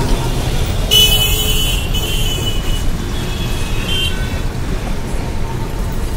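Road traffic heard from a moving bus: a steady low engine and road rumble, with horns tooting a few times. The loudest toot comes about a second in, with a hiss over it.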